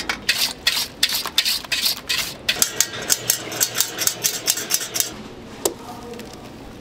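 Rapid sharp taps, regular at about four a second, from a flour sieve being tapped to sift flour, stopping about five seconds in.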